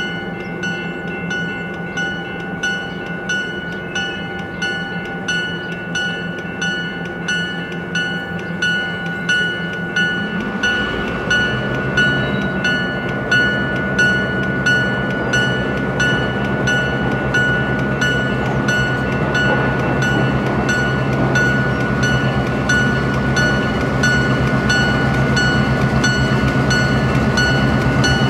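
A diesel freight locomotive's bell ringing steadily, about twice a second, as the locomotive rolls slowly in. From about a third of the way in, the diesel engine's rumble and the rolling noise of the train grow louder as it draws near.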